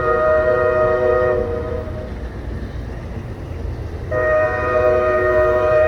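Amtrak locomotive's multi-note air horn sounding a chord: one blast that stops about a second and a half in, then another that starts about four seconds in and holds to the end. A low rumble from the departing train runs underneath.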